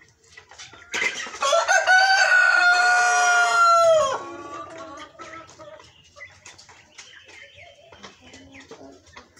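A rooster crows once, loudly, for about three seconds starting about a second in, its long last note held level and then dropping away at the end. Faint cheeping and clucking of young chickens and turkey poults follows.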